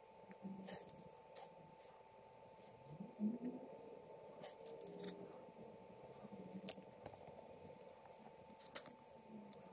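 Faint handling noises: fingers pressing, rubbing and clicking a plastic action figure's limbs, with scattered light clicks, the loudest about 3 and 6.7 seconds in, over a faint steady hum.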